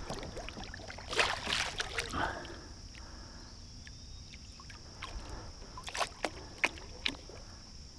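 Water sloshing and splashing as a musky is lowered over the side of a canoe by hand and released. A few short sharp knocks follow near the end.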